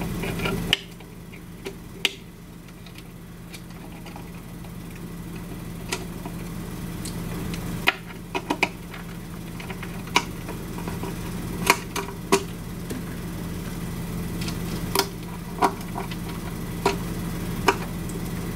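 Scattered sharp clicks and ticks, a few seconds apart, from the 2 mm hex screwdriver working the Ultimaker printer's motor-mount screws as they are tightened down, over a steady low hum.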